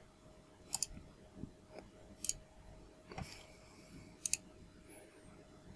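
Computer mouse button clicking, a handful of faint, sharp clicks spaced a second or two apart, some in quick pairs, over a faint steady hum.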